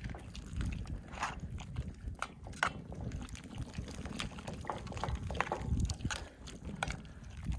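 Liquid sloshing and bubbling in a cooking pot of chicken broth, with scattered short pops over a low rumble.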